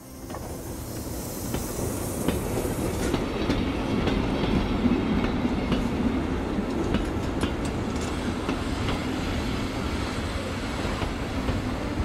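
Train of the Fichtelbergbahn narrow-gauge railway rolling along the track, a steady rumble with wheels clicking over the rail joints; the sound fades in over the first second or so.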